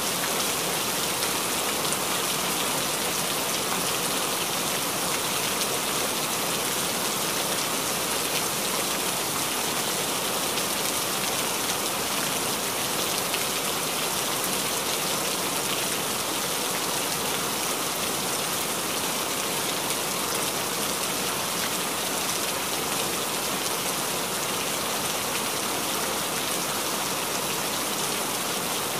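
A steady, even hiss with no strokes or breaks.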